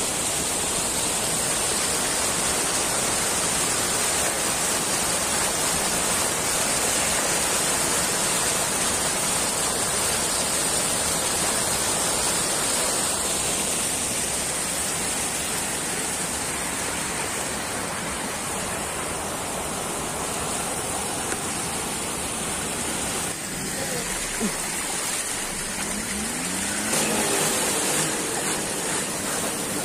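Floodwater rushing over a submerged road and pouring down its edge in a torrent: a steady, loud rush of water. About 23 seconds in it drops slightly and a few brief voice-like sounds come through it.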